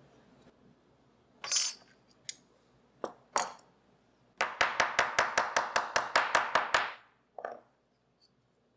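Metal clinks from working a thin brass strip on a work mat: a few separate clinks, then a quick, even run of about twenty sharp taps lasting some two and a half seconds, then one last clink.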